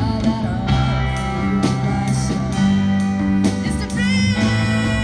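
Rock band playing: guitar chords ring out over bass and drums with a steady beat. A wavering melodic line comes in near the end.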